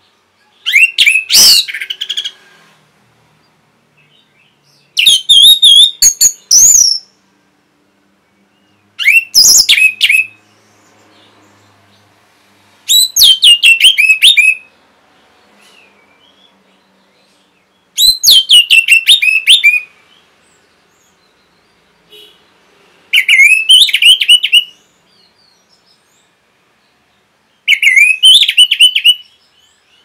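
Orange-headed thrush singing: seven short, loud phrases of rapid high, trilled notes, each lasting a second or two and separated by pauses of about two to three seconds.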